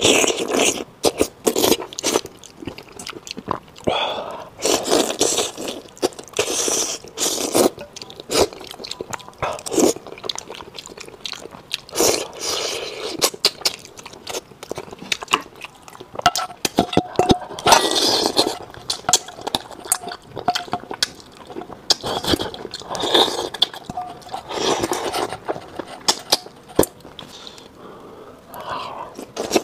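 Close-miked eating of braised yellow-head catfish in sauce: wet chewing, sucking and slurping, with many sharp lip-smack clicks.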